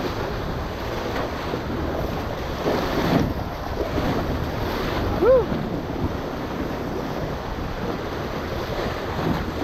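Muddy Colorado River whitewater rushing and splashing around an inflatable raft running a rapid, with wind buffeting the microphone. A heavier splash comes about three seconds in, and a person gives a short whoop a little after five seconds.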